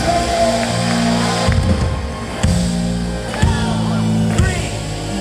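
Live worship band music: a deep bass line with a drum hit about once a second, and singing voices coming in more strongly in the second half.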